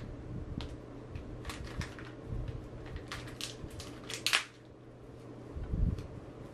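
Clear plastic packaging being handled and crinkled: a string of short crackles, loudest about four seconds in, followed by a dull thump near the end.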